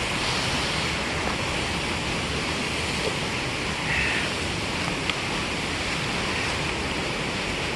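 Seneca Creek Falls, a mountain waterfall, rushing with a steady full roar of falling water. A brief faint high chirp sounds about four seconds in.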